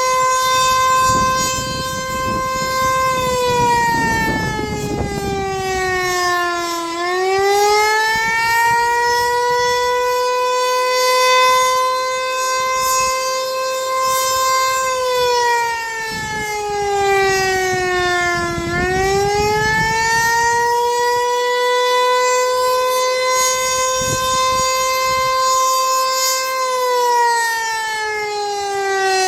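Federal Signal Eclipse 8 electronic outdoor warning siren sounding the Attack signal. A loud tone holds steady, then slides down and swoops quickly back up, three times, about every twelve seconds.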